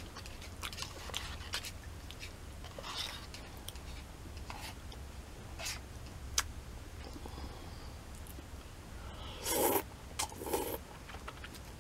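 Quiet eating sounds: small mouth clicks and soft chewing, then two short, louder slurps of thick udon noodles near the end, over a steady low hum.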